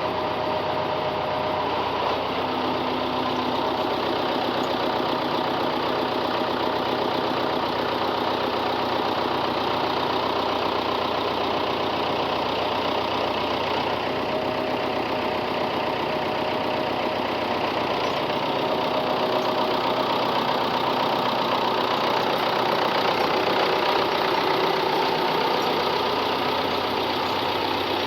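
Engine of the machine towing the disabled skid steer, running steadily under light load as it manoeuvres; it gets a little louder for a few seconds past the middle.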